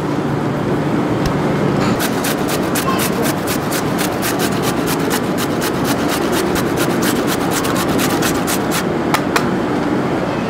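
Carrot being grated on a hand grater: a run of quick, even rasping strokes, about four a second, starting about two seconds in and stopping near the end, over steady background noise.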